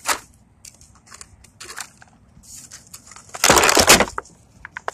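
Handling of a plastic toy: scattered light clicks and taps, then one loud crunching, crackling burst lasting about half a second, starting about three and a half seconds in.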